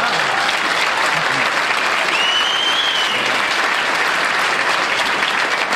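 Studio audience applauding steadily after a punchline, with a single whistle from the crowd about two seconds in.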